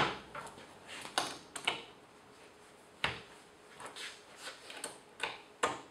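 Metal cabinet hinges being handled and set onto a drilled panel. A series of light clicks and knocks, spaced about a second apart.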